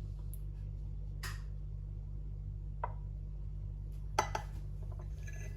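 A metal spoon clinking lightly against a small dish a few times while a spoonful of honey is added to ground turmeric and ginger, the loudest clink about four seconds in, over a steady low hum.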